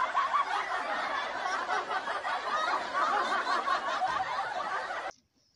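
Many people laughing together, a canned crowd-laughter effect that cuts off abruptly about five seconds in.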